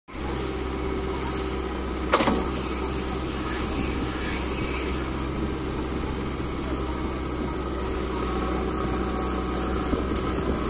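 JCB 3DX backhoe loader's diesel engine running steadily while the backhoe arm digs wet clay, with a single sharp knock about two seconds in.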